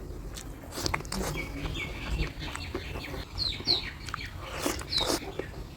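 Birds calling in the background, a handful of short chirps, over scattered soft clicks.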